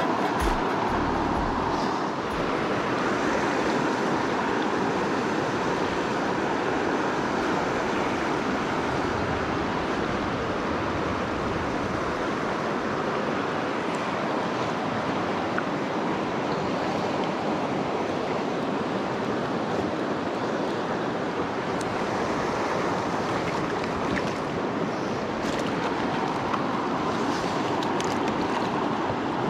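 Steady rush of flowing creek water, with a few low knocks in the first couple of seconds.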